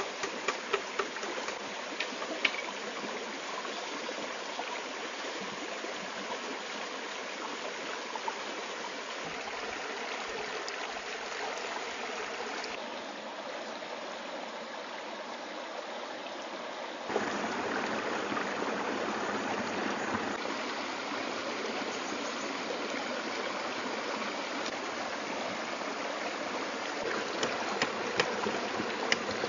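A shallow forest stream running over rocks, a steady rush of water that grows louder about halfway through. Sharp taps of a knife on wood sound in the first seconds and again near the end.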